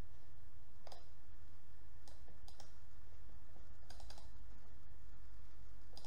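Computer mouse clicking several times as folders are opened in a file dialog, with a quick double click about four seconds in. A steady low hum runs underneath.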